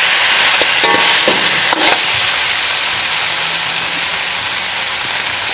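Dungeness crab pieces sizzling in a hot wok while a metal ladle tosses them, with two sharp clicks of the ladle against the wok about one and two seconds in, then steady sizzling.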